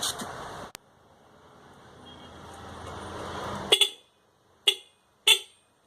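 Two-wheeler's electric horn, tested after setting its tone, giving three short toots over the last two seconds, the first a quick double beep. Before them, a steady hiss cuts off suddenly just under a second in and then slowly builds back.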